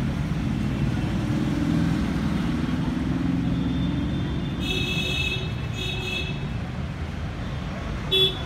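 Road traffic noise from the street: a steady low rumble of passing vehicles, with two short high-pitched tones about five and six seconds in and a brief louder beep near the end.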